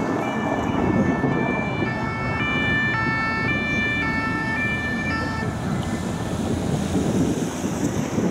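French police two-tone sirens on a passing escort, alternating between a high and a low note about every half second over steady traffic noise. The sirens cut off about five and a half seconds in, leaving the noise of passing vehicles.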